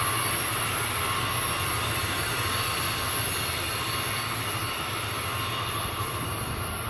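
Train's cars rolling past on the rails, a steady noise of wheels on track that eases slightly toward the end.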